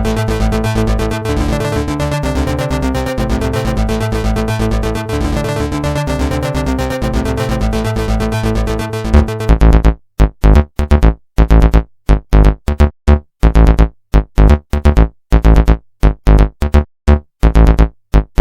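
Electronic music with synthesizer chords and a steady beat; about nine and a half seconds in it changes to loud, short stabs cut by brief silences.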